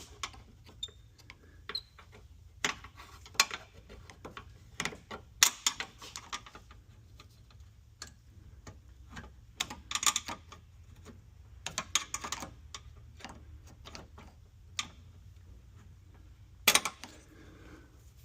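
Irregular small metallic clicks and clatters of a pick working a metal retaining clip out of an oil cooler line's quick-connect fitting, with a sharp click near the end.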